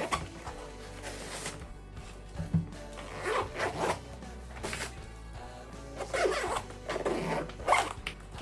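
Zipper on a knee-high boot being run, in a few short strokes about three seconds in and again around six to eight seconds in, over background music.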